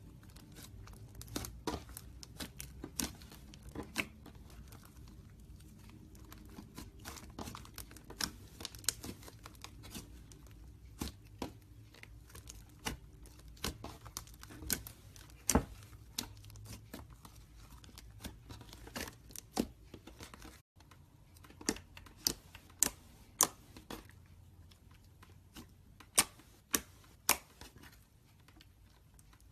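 Slime being handled and squeezed, giving a run of sticky crackles and sharp clicks. After a brief break about two-thirds of the way through, the clicks come louder and further apart, about one a second.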